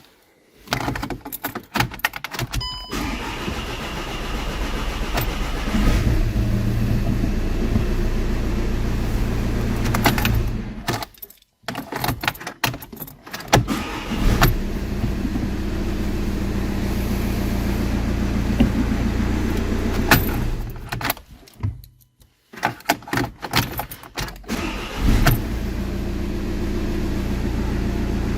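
Volkswagen Passat diesel engine started with the key and running at a steady idle; the sound breaks off twice and the engine runs again. Keys jangle at the start. Hearing it run is the sign that the no-crank, no-start fault has been cured.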